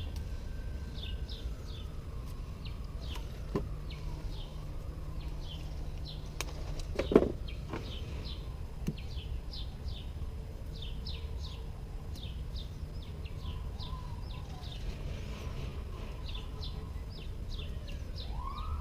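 Small birds chirping repeatedly in short, high notes over a steady low background rumble, with one brief louder knock about seven seconds in.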